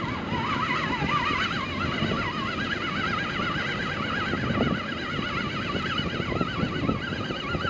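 Fishing reel being wound in for a bait check: a whining tone that wavers up and down several times a second, climbing slightly in pitch in the first second or so and then holding steady.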